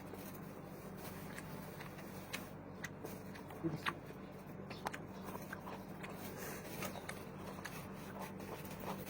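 Quiet eating sounds close to the microphone: soft chewing and a scattered run of small clicks and taps, over a faint steady hum.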